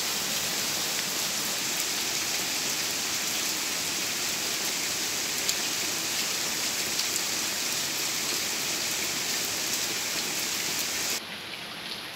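Heavy rain falling steadily: a dense, even hiss with scattered ticks of drops striking. Near the end it turns suddenly quieter and duller.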